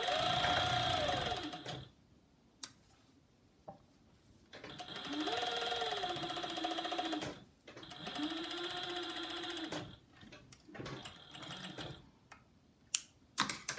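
Juki MO-6700 series overlock serger stitching a seam in short runs: three longer runs and a brief fainter one, each speeding up and then slowing down. A few small clicks fall in the pauses between them.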